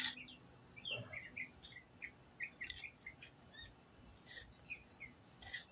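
A songbird chirping over and over in quick, short high notes, with a few brief scrapes of a wooden board against concrete.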